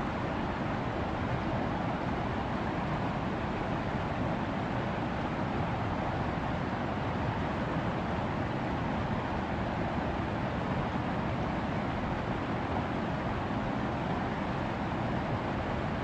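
Mountain stream rushing over boulders in a small cascade: a steady, unbroken water noise with no separate events.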